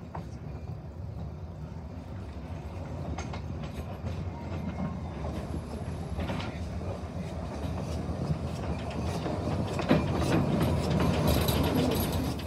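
Narrow-gauge steam locomotive and its train approaching and passing close by, growing steadily louder, with the wheels clicking over the rail joints and points a few times.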